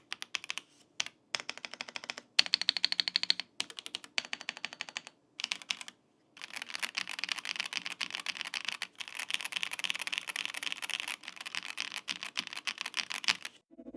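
Typing on a 75% gasket-mount mechanical keyboard with pre-lubed linear switches: short bursts of keystrokes with pauses between them, then from about six and a half seconds in, fast continuous typing that stops just before the end.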